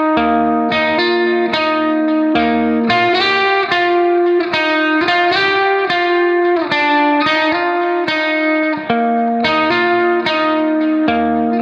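Instrumental background music: a steady run of plucked guitar notes.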